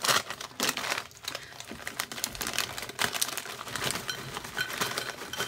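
Crinkling of a Flamin' Hot Cheetos chip bag as it is handled and tipped, with a dense run of small clicks as the puffs pour out onto a dinner plate.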